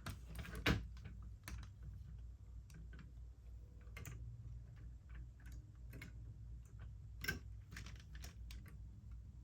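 Scattered light clicks and taps of plastic Lego pieces being handled and fitted, with a sharper click about seven seconds in, over a faint low hum.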